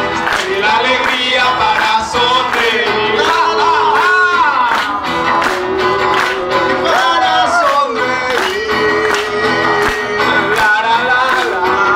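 Live music: male voices singing into microphones over strummed acoustic guitars, with a steady beat.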